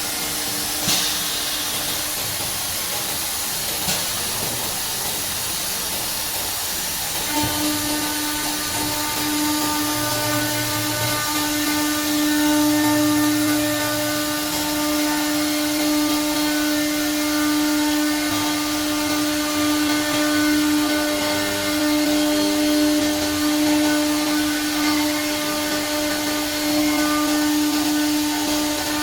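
CNC router machine running: a steady whine of the router spindle that comes in strongly about seven seconds in and then holds, over a constant hiss.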